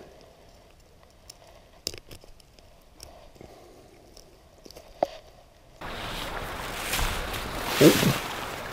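Faint scattered clicks and rustles from hands, hook and rod while a small caught fish is held in the grass. About six seconds in, the sound cuts to a steady rush of wind on the microphone, with a short voice-like sound near the end.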